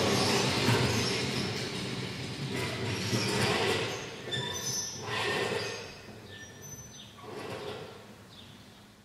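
Several motor-driven kinetic sculptures running at once: a low steady motor hum under metallic rattling, clatter and high squeaks, fading out steadily.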